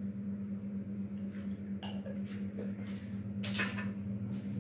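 A few faint, light spoon taps and clicks as garam masala powder is sprinkled from a spoon over a bowl of lobia curry, over a steady low hum.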